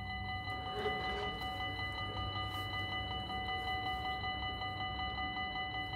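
Dutch level-crossing warning bells (AHOB) ringing continuously in quick, even strokes: the crossing is closing for an approaching train while the half-barriers lower.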